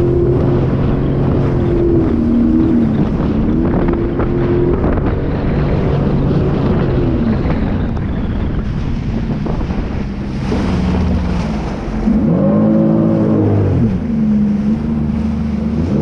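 Sea-Doo personal watercraft engine running under way, its pitch rising and falling several times with the throttle, with one rev up and back down near the end. Wind rushes on the microphone throughout.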